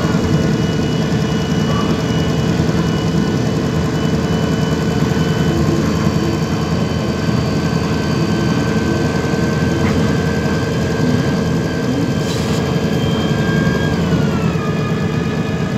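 MAN Lion's City G CNG articulated bus with its MAN E 2866 gas engine and Voith automatic gearbox running: a steady engine drone under a high whine that climbs slowly, then steps down in pitch near the end.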